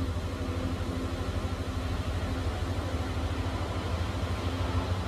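Science-fiction time machine sound effect: a steady, low, throbbing hum of the machine powering up, growing slightly louder toward the end.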